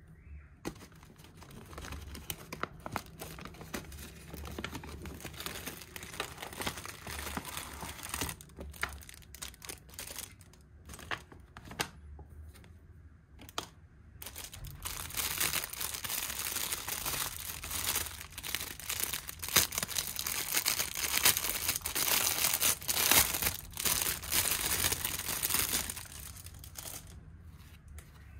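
Plastic packaging bags crinkling and rustling as a plush doll is handled and pulled out of them. It comes on and off, busiest and loudest in the second half.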